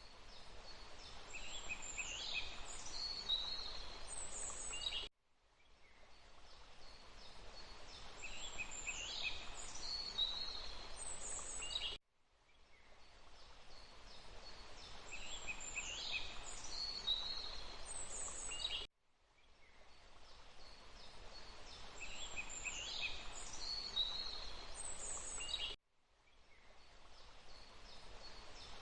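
Looped forest ambience: a few songbird calls that glide in pitch over a steady hiss of running water. The same short stretch repeats about every seven seconds, each time cutting out briefly and fading back in.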